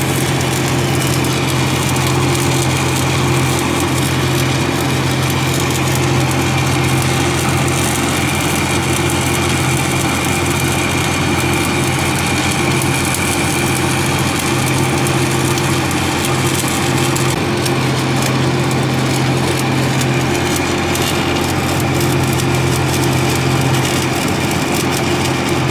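Stick welding arc crackling and sizzling steadily as washers are welded onto the hinge pins, over the constant hum of an engine running.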